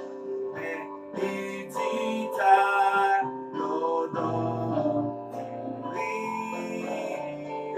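A man singing a hymn from a hymnbook, with a steady instrumental accompaniment beneath the voice.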